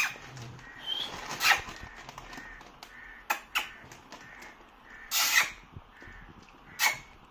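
Crow cawing: about six short, harsh caws, spaced a second or two apart.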